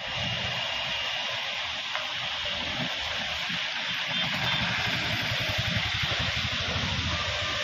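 Heavy rain falling steadily on a flooded road, an even hiss, with the engines of passing traffic underneath and vehicles splashing through the standing water.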